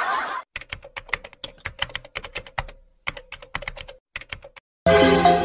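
Keyboard typing sound effect: a run of quick, irregular clicks with short pauses, as for text typing out on a title card. Music with sustained notes comes in near the end.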